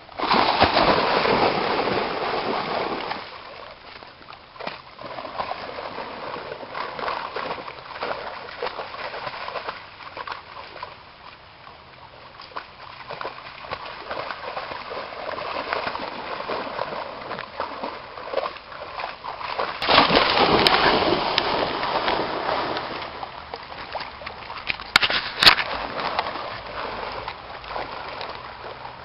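Creek water splashing and sloshing as a German shepherd wades through it, with louder stretches of splashing at the start and about twenty seconds in. A few sharp knocks come about twenty-five seconds in.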